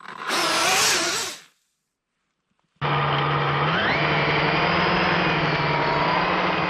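Brushless electric motor of an RC snowmobile whining: a short burst of revving that cuts off abruptly, a gap of silence, then a steady whine that rises in pitch about a second after it starts and holds.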